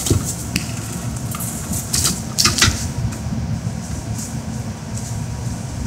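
Cats scuffling with a toy: short scrapes and clicks come and go, busiest about two to three seconds in, over a steady low hum.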